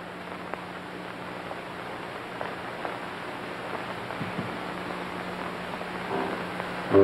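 Steady hiss with a low hum, the background noise of an old film soundtrack, with a few faint ticks scattered through it.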